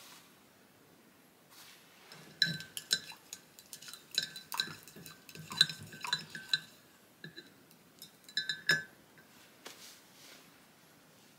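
A candy cane stirred in a ceramic mug, clinking against the sides in a quick irregular run of small ringing taps for about six seconds.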